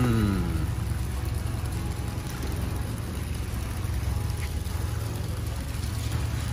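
Steady low machine hum under a constant haze of background noise.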